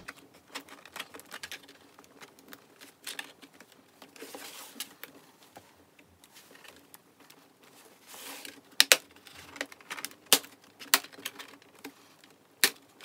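Plastic bottom cover of a laptop being pressed back onto the chassis: soft rubbing and handling, then several sharp clicks in the second half as the cover's clips snap into place.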